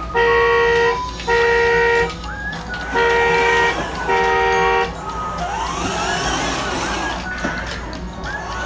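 A horn honking four times in two pairs, each honk a steady tone of almost a second, then a jumble of gliding tones that rise and fall.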